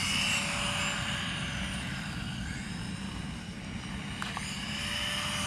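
Two electric RC buggies, a Team Associated Reflex 14B and a WLtoys A959-B, racing on asphalt: their motors whine, the pitch rising and falling as the throttle changes, over a low rushing noise.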